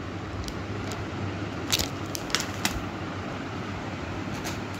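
A few short crinkles and clicks of a plastic-wrapped comb pack being handled and set down, over a steady background hum.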